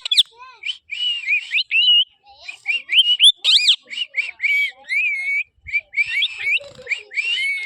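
Pet parrot chirping and whistling: a quick string of short, high, wavering calls with brief pauses between them.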